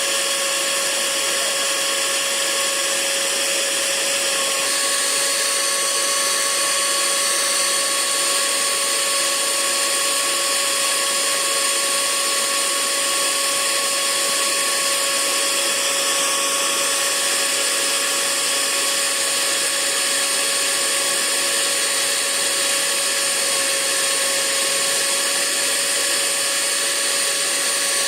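Hair dryer running steadily: a constant rush of air with a steady motor whine over it.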